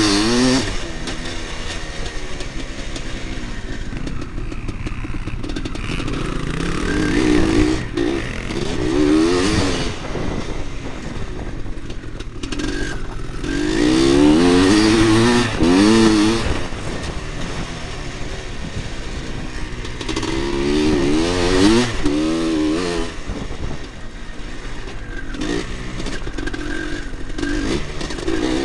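1986 Husqvarna 400 two-stroke single-cylinder motocross bike ridden hard round a dirt track, heard from a camera mounted on the bike: the engine revs up and falls back again and again through the lap, under steady wind and track noise.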